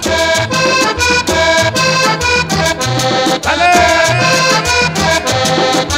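Cumbia playing loud over a sound system, the accordion carrying the melody over a steady beat and bass.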